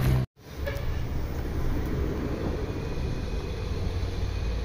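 An engine running steadily with a low rumble, after a brief dropout a moment in.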